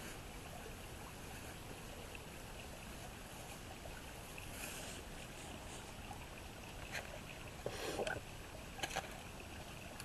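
Steady outdoor background hiss, with a few short clicks and knocks in the second half.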